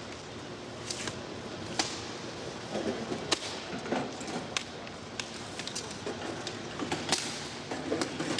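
Irregular knocks, taps and clicks over a steady background noise.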